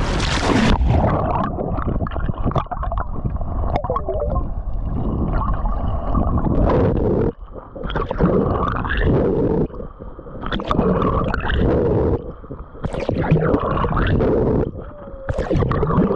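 Muffled water gurgling and rushing around a submerged camera as a swimmer swims through calm sea, swelling and fading about every two seconds with the strokes.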